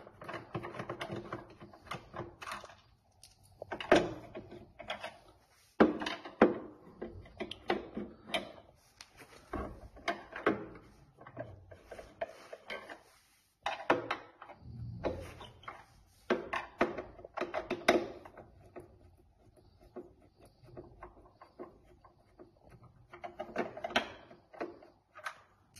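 Screws being taken out of a treadmill's metal motor cover by hand: irregular clicks, knocks and rattles of metal being handled, in clusters with short quiet gaps.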